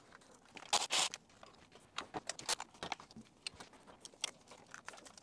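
Hand work in a car's engine bay while a new EGR valve is fitted: scattered small metallic clicks, taps and scrapes of parts and tools being handled, with two louder rustling scrapes about a second in.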